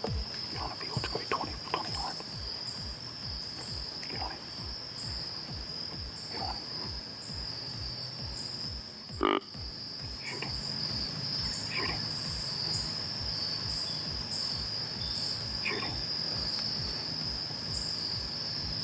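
Crickets chirping in a steady high chorus over a low pulsing beat of background music, about three beats a second. One sharp click about nine seconds in.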